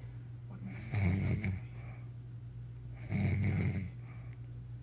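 A sleeping man snoring: two heavy snores, each lasting under a second, about two seconds apart.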